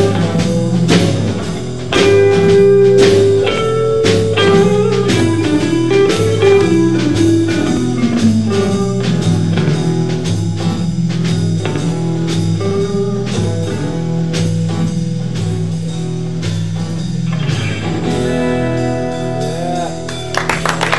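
A live band plays an instrumental passage: an electric lead guitar slides and bends its notes over a stepping electric bass line and a drum kit. From about 18 seconds in, the band holds a ringing chord as the song closes.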